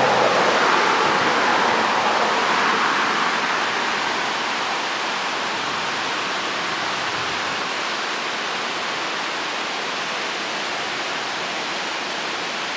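River water rushing through whitewater rapids: a steady, even rush, a little louder in the first few seconds.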